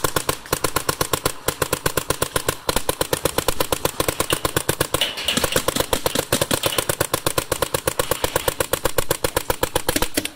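Adrenalin Angel LCD electropneumatic paintball marker firing rapid, continuous strings of shots, many a second.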